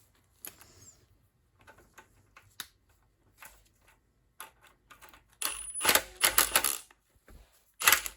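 Hand tool clicking and clattering against the oil drain plug of a small Honda engine as the plug is worked loose. There are scattered light clicks, then a dense run of rapid clicks a little past halfway and a sharp clack near the end.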